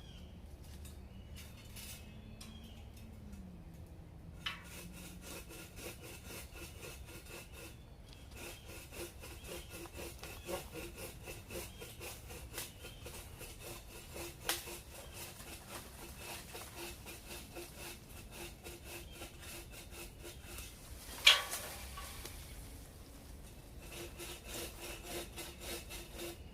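Hand saw cutting through a tree branch in quick back-and-forth strokes that start about four seconds in and go on with short pauses. One loud sharp crack late on.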